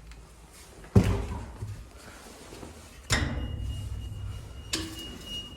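Plastic entrance door in an apartment block, with a sharp knock about a second in, then the lock and door being worked from about three seconds. A steady high electronic beep from the door intercom begins then and runs on, and another click comes near the end.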